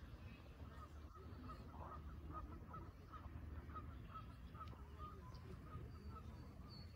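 A bird calling in a long series of short, evenly repeated notes, a few a second, faint over a steady low rumble.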